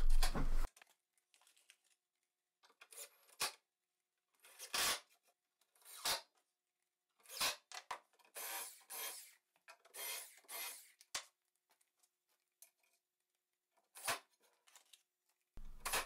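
Flat steel J-hooks set down and shifted into position on a wooden board: a few separate knocks and clinks, with two stretches of scraping about halfway through.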